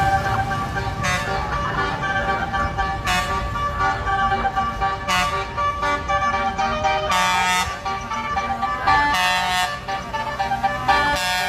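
Loud vehicle-mounted ship-type air horns, telolet/basuri style, sounding sustained multi-tone chords, with a brighter blast about every two seconds.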